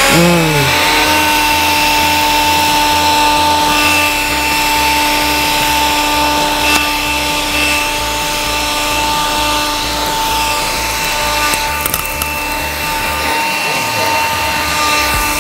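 Cordless handheld vacuum cleaner (the detachable handheld unit of an Electrolux Ergorapido ZB3423B) sucking up crumbs from a fabric sofa cushion. Its motor is still spinning up at the very start, its whine rising, then it runs steadily with a high whine over a rushing airflow hiss.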